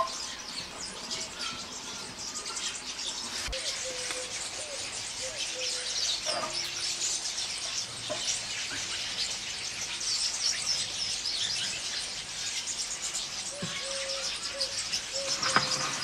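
A flock of rosy starlings chattering in a tree: dense, overlapping chirps and squeaks that run on without a break. Short, level lower notes repeat now and then in the background.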